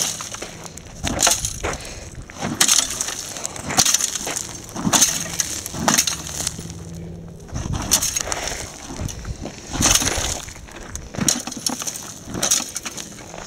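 Boots kicking and scuffing gravelly dirt onto a burning lawn mower engine to smother the fire: a string of irregular crunching scrapes and thuds, about one a second.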